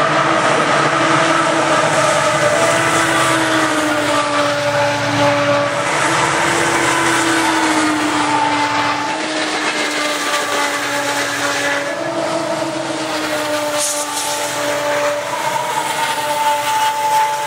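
Howl of an MPI MP40PH-3C diesel locomotive passing: a loud, steady drone of several pitches together that slides slowly down and up, over the rumble of the train.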